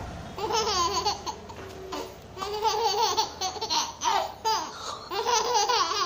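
A baby laughing in four high-pitched bursts while being swung.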